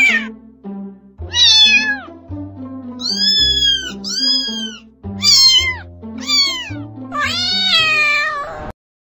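Kittens meowing, about six high-pitched meows with the last one long and drawn out, over background music. The sound cuts off abruptly just before the end.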